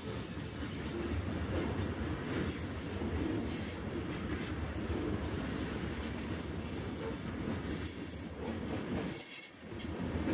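Freight train of covered hoppers and tank cars rolling past close by: a steady rumble and clatter of steel wheels on the rails, dipping briefly a little after nine seconds in.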